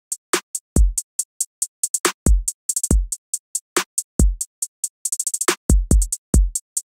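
Programmed trap drum beat from a Maschine drum machine playing back at 140 BPM. Steady hi-hats with two quick hi-hat rolls run over booming kicks that drop in pitch and snare hits.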